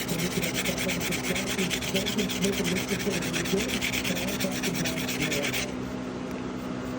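Fast, even rubbing strokes of an abrasive against a pocket knife, stopping suddenly near the end, over a steady low hum.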